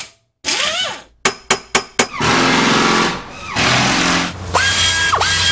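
Logo intro sound effects: a whoosh, four sharp clicks in quick succession, then a steady mechanical buzzing that drops off briefly and comes back. Near the end a thin high electronic tone dips sharply in pitch twice.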